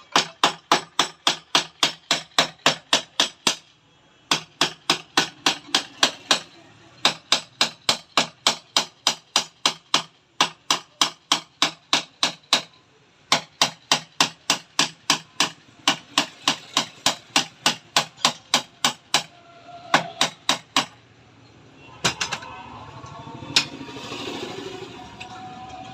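Hammer blows on the steel body of a motorcycle rear shock absorber to straighten it, coming in quick runs of about four strikes a second with short pauses between them. Near the end the hammering gives way to a couple of single knocks and a softer, steadier noise.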